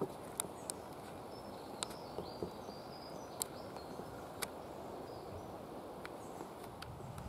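Quiet outdoor ambience: a steady low background hiss with faint high chirping, broken by a handful of short sharp clicks.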